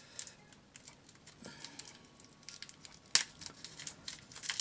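Light clicks and crinkles of plastic packaging being handled while toy accessories are unpacked, with one sharper click about three seconds in.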